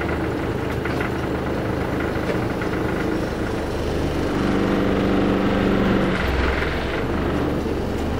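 A large bus's diesel engine running as heard inside the cabin during a slow drive. It gets louder, with a stronger hum, about halfway through.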